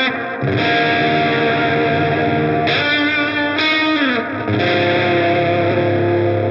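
Electric guitar played through the Audio Disruption Devices Transformations one-knob fuzz pedal: held distorted chords that change a few times, with a slide down in pitch about four seconds in.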